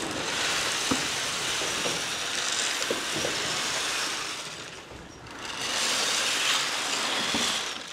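Dry feed pellets pouring from a plastic bucket into a feed trough: a steady rattling hiss that eases off about five seconds in, then a second pour.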